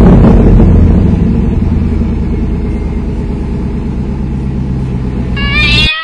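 Intro sound effect: a car engine revs up and then runs steadily, slowly getting quieter. Near the end a cat meows.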